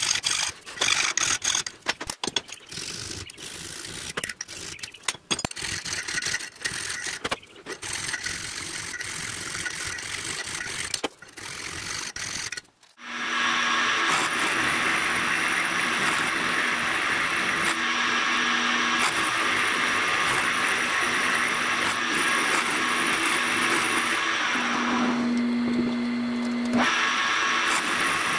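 Hand file scraping in irregular strokes across a metal part held in a vise. About 13 seconds in, this gives way to a milling machine running steadily as its end mill cuts a slot in a metal disc, with a low hum that grows louder for a moment near the end.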